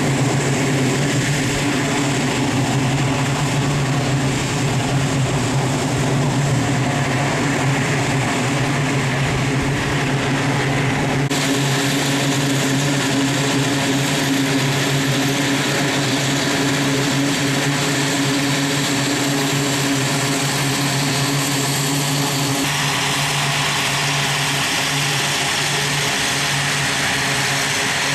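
E-2C Hawkeye's twin turboprop engines running with a steady, even drone and a low propeller hum that holds its pitch. The hiss above it brightens suddenly about eleven seconds in and again a little after twenty seconds.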